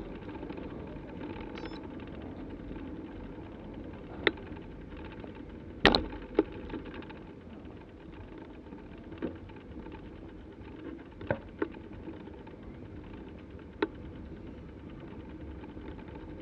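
Bicycle riding noise: a steady rush of rolling and air, broken by about seven sharp clicks and knocks from the bike and its camera mount over the road surface, the loudest about six seconds in.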